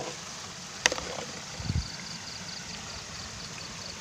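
Rain-swollen water running steadily through a narrow ditch channel. A sharp click comes a little under a second in, and a low thump comes near the middle.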